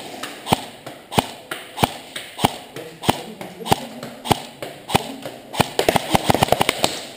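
Airsoft replicas firing: sharp cracks at a steady pace, about one every 0.6 s, then a rapid, irregular flurry of shots near the end.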